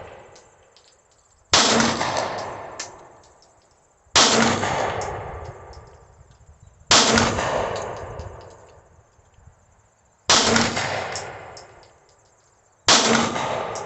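Taurus G3 9mm pistol fired slowly, five shots about two and a half to three seconds apart, each a sharp crack with a long echoing decay. Small faint clicks follow each shot.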